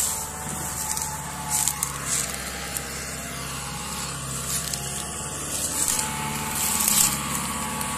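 Kubota tractor's diesel engine running steadily under heavy load as it pulls a trailer piled with sugarcane, with a few scattered crackles over it.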